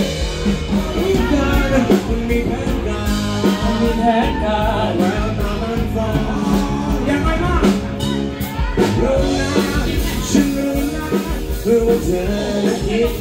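Live band playing an upbeat Thai pop song through a PA system, electric guitar and a steady beat under a singer's voice.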